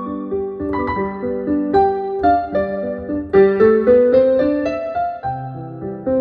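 Digital piano played with both hands: a slow, gentle passage of single notes over held chords. The notes climb step by step about halfway through, and deeper bass notes come in near the end.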